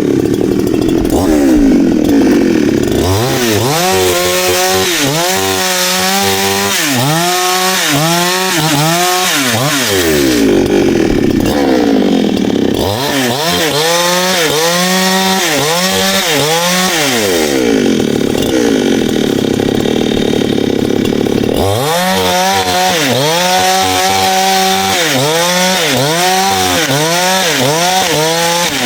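Chainsaw engine at high revs cutting wood. Its pitch rises and falls over and over, about one and a half times a second, in three long stretches, with steady full-throttle running between them.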